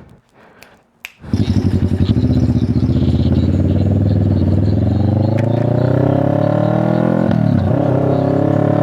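Parallel-twin engine of a CF Moto 650NK running through an SC Project exhaust, coming in abruptly about a second in and pulling steadily with a slowly climbing pitch. The pitch drops briefly about seven seconds in, then climbs again.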